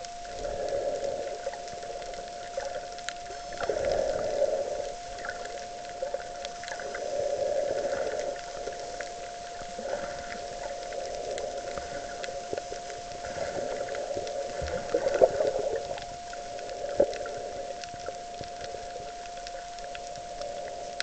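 Underwater sound picked up through a camera's housing: muffled water noise that swells and fades every few seconds over one steady tone, with scattered sharp clicks. The loudest clicks come about two-thirds of the way in.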